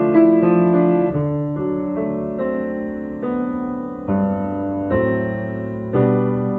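Piano playing a children's-song accompaniment, moving through a chord progression with a new chord struck about once a second.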